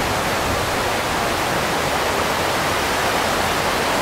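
Whitewater rapids rushing: a steady, unbroken wash of churning river water.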